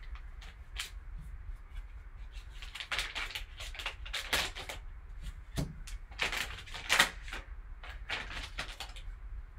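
Foil trading-card pack wrapper crinkling and tearing in gloved hands, in irregular crackly bursts, the loudest about seven seconds in, over a low steady hum.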